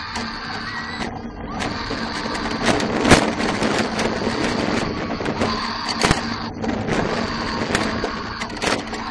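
Inverted roller coaster train running at speed: wind and track noise rush past the on-ride microphone, with repeated knocks and rattles from the train and riders screaming under it.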